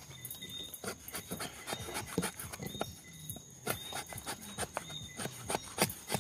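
A blade shaving thin curls off a stick of wood to make kindling for a fire: a quick, irregular series of short scraping strokes.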